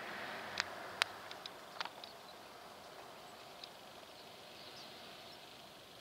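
Great tits giving short, sharp high calls, several in quick succession in the first two seconds and a few fainter ones after, over a steady background hiss.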